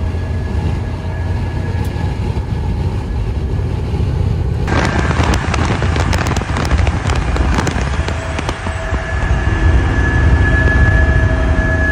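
Semi-truck highway driving noise: a loud, steady low rumble of engine, tyres and wind. About five seconds in the sound changes to a run of sharp wind-buffeting crackles, then a steady high whine over the rumble.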